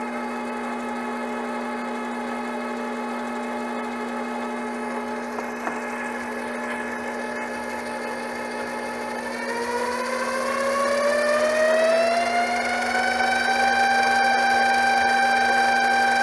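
Grizzly G0765 7x14 mini-lathe running with its spindle turning, giving a steady whine. About ten seconds in the spindle speed is turned up from around 340 to around 630 RPM: the whine rises in pitch over a few seconds and gets louder, then holds steady at the higher speed.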